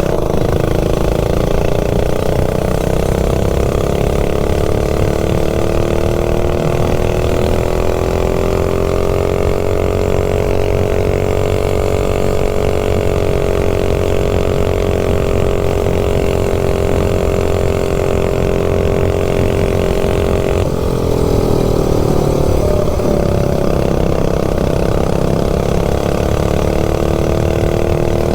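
Stage 3 minibike clone engine, a built single-cylinder four-stroke, running hard at high revs, its pitch held high and creeping up slowly. About two-thirds of the way through the revs drop suddenly, then build back up.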